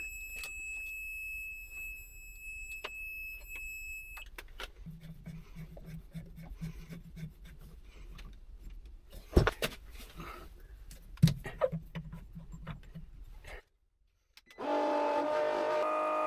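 A steady high-pitched electronic beep for about four seconds, then scattered clicks and knocks, two of them sharp and loud, over a low pulsing hum. The sound cuts out near the end and steady tones of several pitches follow.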